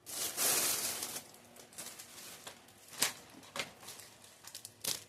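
Plastic snack and food wrappers crinkling and rustling as they are handled, with a louder rustle in the first second and scattered sharp crackles after it.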